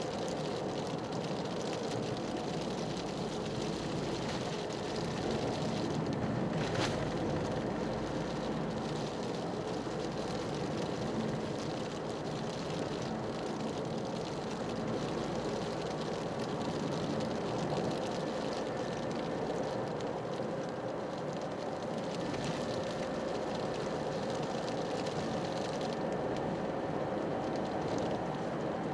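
Toyota GR Yaris's turbocharged 1.6-litre three-cylinder engine running at a steady cruise, with tyre and road noise from studless winter tyres. A single sharp click about seven seconds in.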